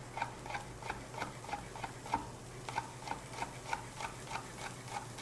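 Chef's knife finely slicing a garlic clove on a wooden cutting board, the blade tapping the board about four times a second in a steady rhythm.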